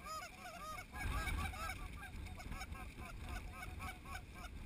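A flock of snow geese calling: a constant chatter of short, high, overlapping honks, several a second, over low wind rumble on the microphone.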